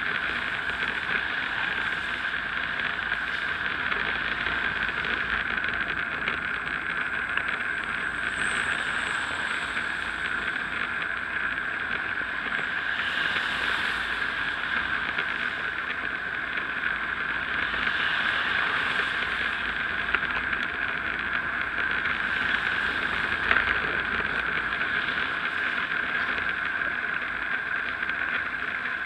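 Steady rushing of wind on the microphone and bicycle tyre noise on a wet road while riding. About halfway through, a car overtakes with a brief louder hiss.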